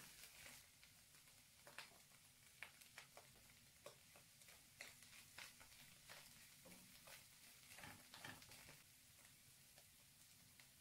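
Faint, irregular taps and scrapes of a wooden spatula stirring chicken and vegetables in a non-stick frying pan, over a light steady hiss.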